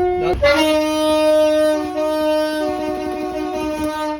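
Multi-chime train air horn sounding a chord of several notes: a blast breaks off briefly just after the start, then a long sustained blast whose chord shifts slightly partway through before it cuts off suddenly at the end.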